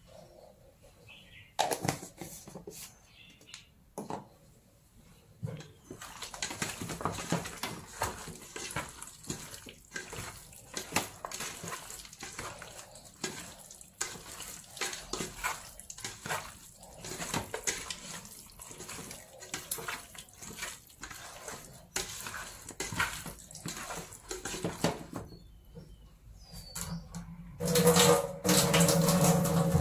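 Pieces of eel being squished and mixed by hand with spice powder in a metal bowl: a steady run of wet squelching and slapping, with the fingers now and then knocking the bowl. Near the end comes a louder stretch with a steady low hum in it.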